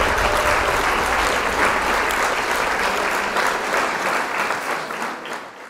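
Audience applause, many hands clapping, fading out toward the end.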